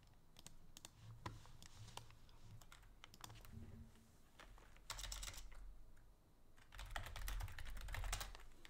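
Faint computer keyboard typing: scattered single keystrokes, then two quick runs of keys, about five seconds in and again about seven to eight seconds in.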